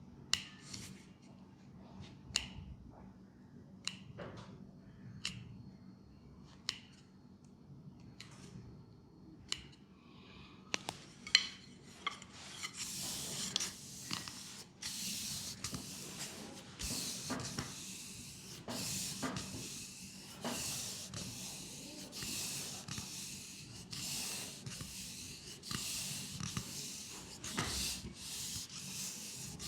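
Sharp single taps about every second and a half, then from about twelve seconds in, brisk continuous rubbing strokes on skin in a leg massage.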